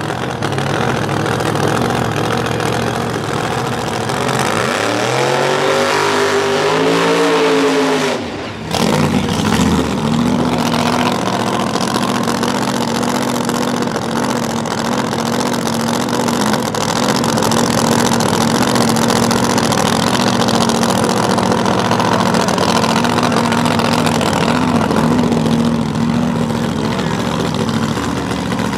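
Top Sportsman drag-racing car engine revving, its pitch climbing for about four seconds before cutting off suddenly. It then settles into a loud, steady run at idle for the rest.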